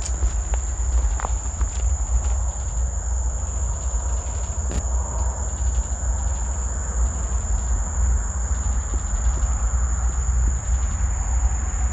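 A steady, unbroken high-pitched insect-like drone, over a constant low rumble, with a few faint clicks.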